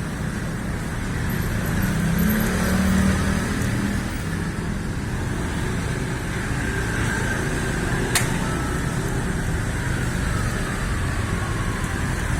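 Motor vehicle engines running, with road traffic noise, swelling about two seconds in. There is a single sharp click about eight seconds in.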